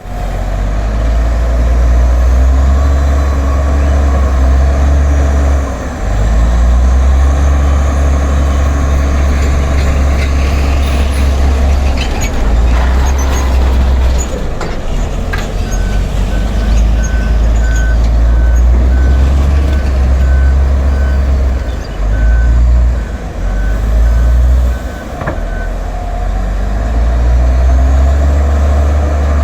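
Bulldozer's diesel engine working under load, its pitch rising and falling as it revs. About halfway through, a reversing alarm starts beeping steadily, roughly twice a second, for about ten seconds, then stops.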